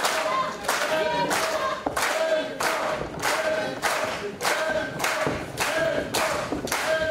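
Wrestling crowd clapping in unison about twice a second, with short pitched notes of a repeated tune between the claps.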